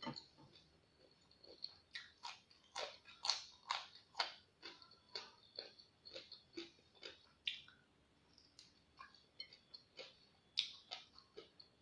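Close-miked chewing of crisp raw salad vegetables: a run of sharp crunching bites, thickest a couple of seconds in and sparser toward the end.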